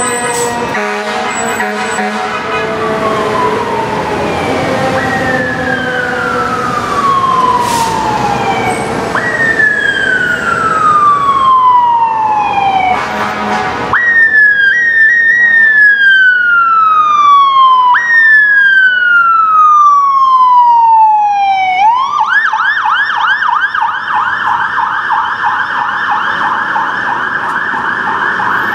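Electronic sirens on fire department apparatus responding code 3. They sound a series of long falling wail sweeps, each jumping back up before falling again, then switch to a fast yelp near the end, over city traffic. A steady horn tone fades out at the very start.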